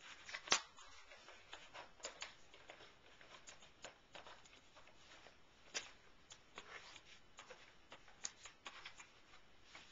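Thin white cardboard sheets being unfolded, slid and flapped on a tabletop by hand: faint rustling and scraping with scattered sharp taps, the loudest about half a second in.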